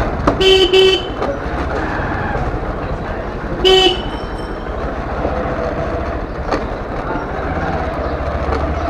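Motorcycle horn beeping: a quick double beep about half a second in, then one short beep just before four seconds in, over the steady low running of the motorcycle.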